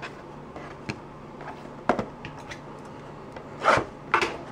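Trading cards and small cardboard card boxes handled on a wooden desk: a few light clicks and taps, and a brief scrape near the end as a box is set down. A faint steady low hum runs underneath.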